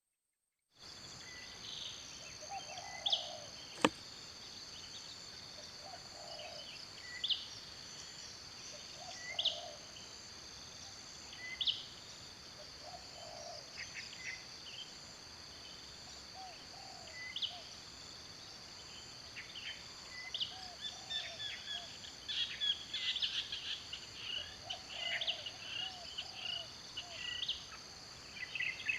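Steady, high insect chorus with a bird calling over it about every two seconds, the chirping getting busier from about twenty seconds in. A single sharp click about four seconds in.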